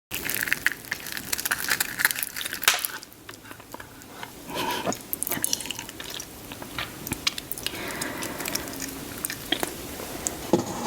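Close-miked mukbang eating sounds: a person chewing and biting food, with many quick, irregular wet smacks and clicks.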